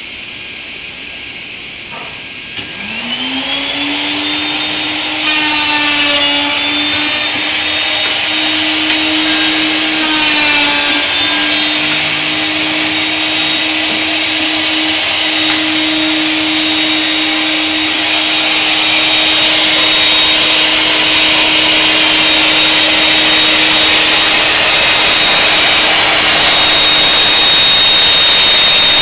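A plunge router mounted under a router table spins up with a rising whine a couple of seconds in, then runs with a steady high whine. Its pitch wavers a couple of times as a board is fed past the cutter.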